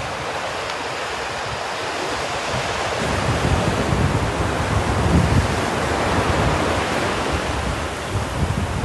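Sea waves washing in, a rush of surf that builds and eases again in the middle, with wind on the microphone.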